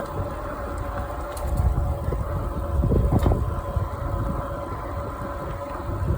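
Hanevear H100 dual-motor ebike being ridden uphill: wind rumbles on the phone's microphone over a steady whine from the motors.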